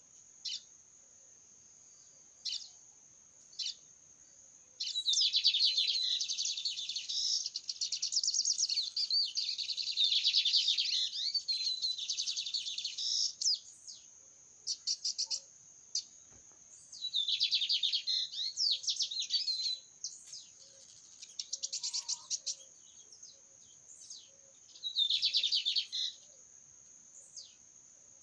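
A small songbird known as the cigarrinha singing in rapid, machine-gun-like trilled bouts, one long outpouring of about eight seconds and several shorter phrases with pauses between. A steady high-pitched whine runs underneath.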